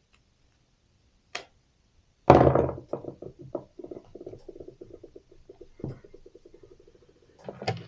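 Garden hose being twisted and forced onto a brass hose fitting: a knock about two seconds in, then a fast run of rubbing squeaks and creaks for several seconds, with sharper knocks near the end.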